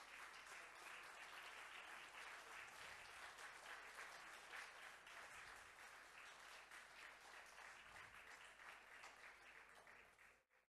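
Faint audience applause, a dense patter of many hands clapping that slowly dies away near the end.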